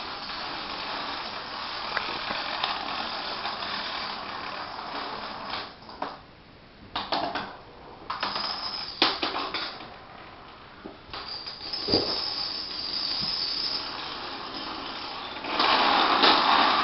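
Long lines of dominoes toppling one after another in a rapid, steady clatter. The clatter thins to a few separate clicks and knocks in the middle, with one heavier knock about twelve seconds in, then comes back louder and denser near the end as more dominoes fall.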